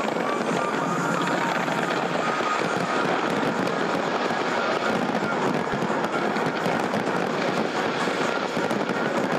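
A big fireworks display going off in a dense, continuous barrage, with many crackles and bangs merging into a steady din.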